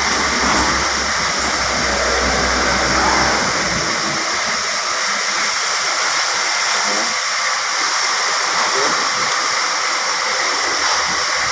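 A steady, even hiss with a faint low rumble that fades out about four seconds in.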